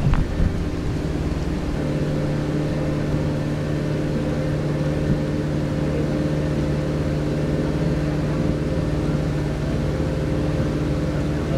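Tour boat's motor running at a steady cruising speed, a constant low hum with a few steady tones above it that settle in about two seconds in. A few brief knocks right at the start.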